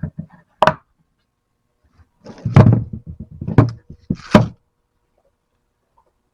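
Hard objects knocking together: a couple of sharp knocks at the start and another just after, then about two seconds of rapid clattering knocks, with three loud strikes among them.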